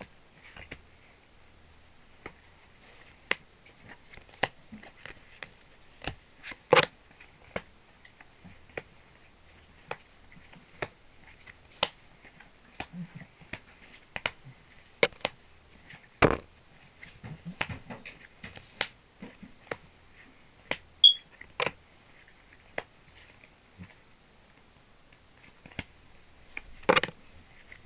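Yu-Gi-Oh trading cards and booster packs being handled on a table: irregular sharp clicks and taps, with a few louder knocks spread through.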